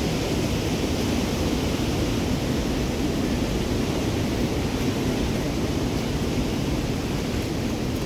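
Merced River rushing through its rocky gorge below the trail: a loud, steady roar of whitewater.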